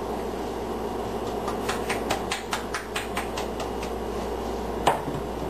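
Salt being dispensed over a casserole: a run of quick, light clicks and rattles, about four a second, over a steady low hum, with one sharper knock near the end.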